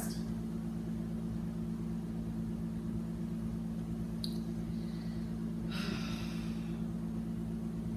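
Steady low hum of room tone, with a brief soft rustle about six seconds in.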